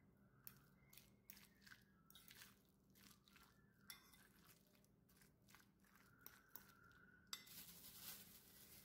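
Faint clicks and scrapes of a fork stirring egg salad in a bowl, knocking now and then against the bowl's side. About seven seconds in comes a louder crinkling of plastic wrap being handled.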